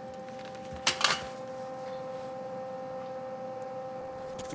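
A steady, even hum made of a few fixed tones, with two short sharp clicks about a second in, as of a part being handled.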